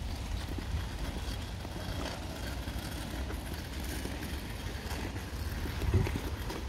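Wind buffeting the microphone: a gusty, uneven low rumble that rises in a stronger gust near the end.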